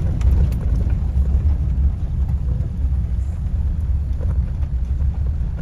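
Steady low road and engine rumble of a moving vehicle, heard from inside the cab.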